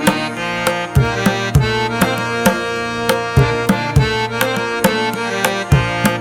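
Background music: sustained melodic notes over a steady drum beat.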